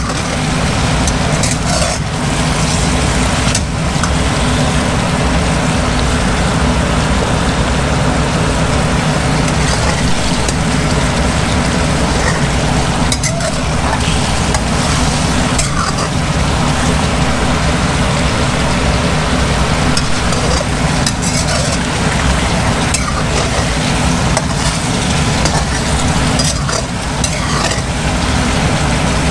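Sauce bubbling and sizzling around chicken wings in a stainless steel wok on high heat as it reduces, with a metal spatula stirring and scraping the pan every few seconds, over a steady low rumble.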